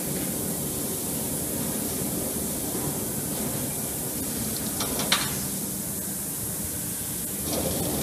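Steady hissing noise, with a short sharp click about five seconds in and the noise starting to swell near the end.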